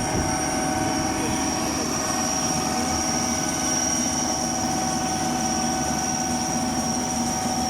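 Agrotech Eco combine harvester running steadily: a constant mechanical drone with a steady high-pitched whine over it.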